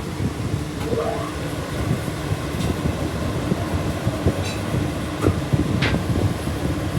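A steady mechanical rumble with irregular knocks and rattles, a brief squeak about a second in and a short, sharp metallic sound near the end.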